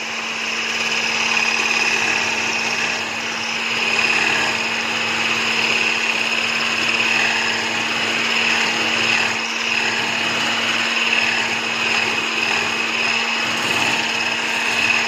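Electric stick blender with a whisk attachment running steadily at one speed, a constant motor hum and high whine, as it whisks cherry purée into whipped cream in a stainless steel bowl.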